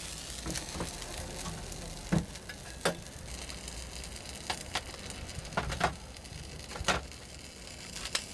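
Batter sizzling on a hot bungeoppang iron, a steady hiss, with a scattering of sharp clicks and taps.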